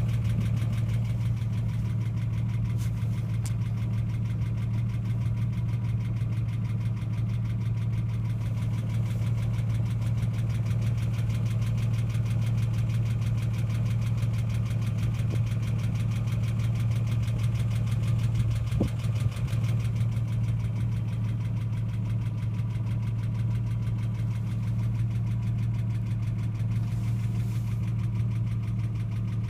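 Ford Falcon AU XR6's inline-six engine idling steadily with a constant hum and no revving. This is the engine noise the owner is asking about, which comes on after revving above 4,000 rpm and slowly goes away over about five minutes. A brief knock or handling noise comes about two thirds of the way through.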